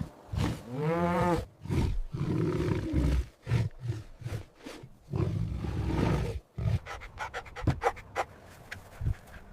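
A big cat, lion or tiger, roaring and growling: several deep calls one after another through the first six seconds, then only quieter short sounds.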